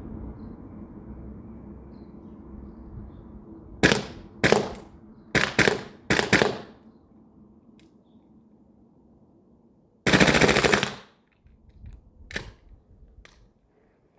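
Airsoft gas blowback guns firing: four single shots, each with the sharp clack of the slide or bolt cycling, then a rapid burst of about a second, followed by a few faint clicks.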